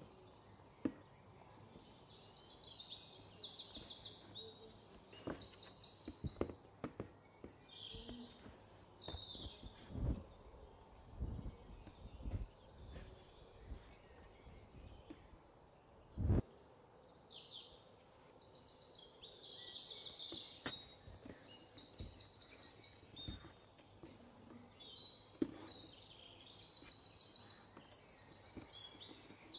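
Small birds chirping in quick repeated trills, in two long spells near the start and over the last ten seconds. A few low thumps come in the middle.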